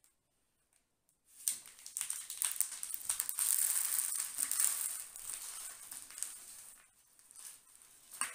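Coarse, gravelly potting mix spilling out of a tipped plastic nursery pot onto a plastic tray: a dense clatter of many small grains. It starts after about a second and a half of quiet and thins to scattered clicks toward the end.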